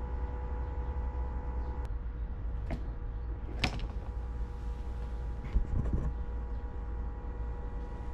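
A steady low hum with faint steady tones, broken by a few sharp clicks and knocks. The sharpest comes about three and a half seconds in.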